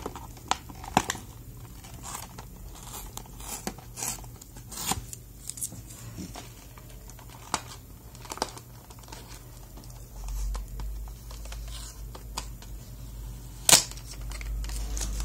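Price-tag sticker being picked and peeled off a printed cardboard box: scattered small scrapes, ticks and short tearing and crinkling sounds, with a sharp click near the end.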